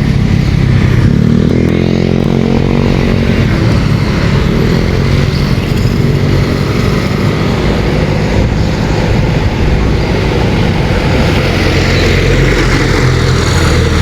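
Motor scooters, Yamaha Mio among them, passing on the road in steady traffic noise. One engine's note glides in pitch about one to three seconds in.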